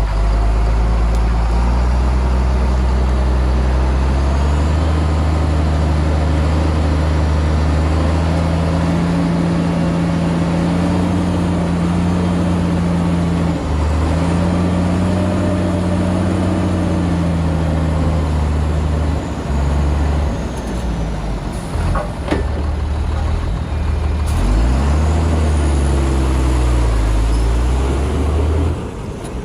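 Heavy diesel engine of earthmoving machinery running under load and revving up and down repeatedly, with a couple of knocks about two-thirds through.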